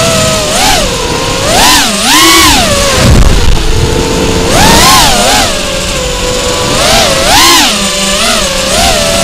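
FPV quadcopter's electric motors and propellers whining, the pitch swooping up and down again and again as the throttle is punched and released. A brief low rumble about three seconds in.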